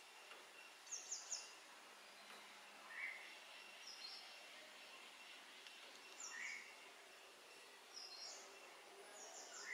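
Faint outdoor background with a bird calling: short high chirps in groups of two or three about every two seconds, with a lower single note now and then.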